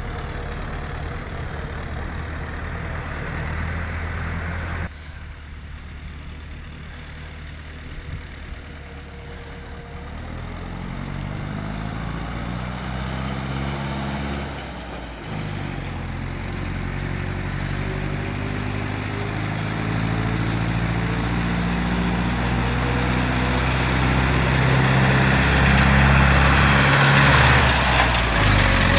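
Ursus C-360 tractor's four-cylinder diesel engine running as the tractor drives up, growing steadily louder toward the end. The engine sound dips briefly about halfway through.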